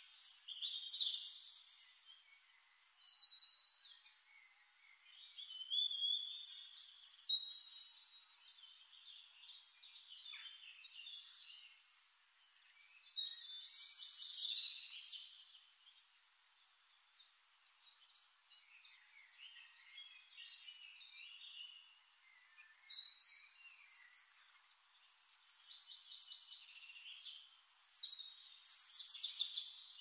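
Birdsong: short bouts of high whistled and chirping phrases every several seconds, with quieter chirps between them over a faint hiss.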